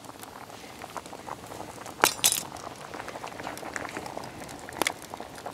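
Thick stew bubbling in a cast iron Dutch oven as it is stirred, with a pair of sharp clinks about two seconds in and another near the end.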